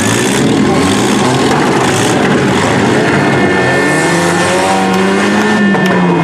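Demolition derby car engines revving hard in a steady din, one engine's pitch climbing and then dropping off near the end.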